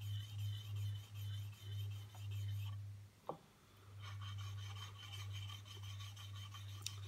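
Back of a Narex paring chisel rubbed back and forth on lubricated microfinishing film over float glass: about four short polishing strokes, a brief pause with a single light tap a little past the middle, then steadier rubbing.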